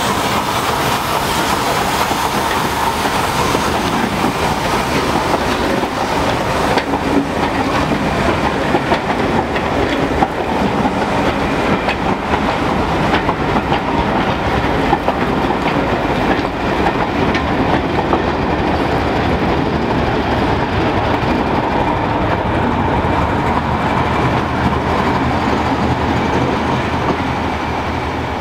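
Passenger carriages rolling past at close range, their wheels clattering over rail joints. In the second half, the rear-end Class 31 diesel locomotive adds its engine sound as it passes.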